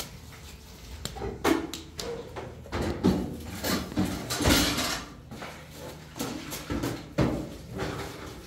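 Irregular knocks, clatter and rustling of kitchen things being handled, with one longer scraping rush about halfway through.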